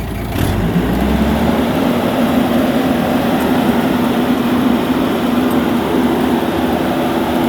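Rice combine harvester engine running steadily under load. It gets louder with a brief click about half a second in.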